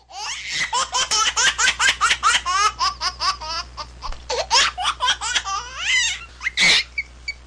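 High-pitched hearty laughter: a long run of quick 'ha-ha' pulses, about five a second, then a short pause and a few looser bursts of laughing, the loudest near the end.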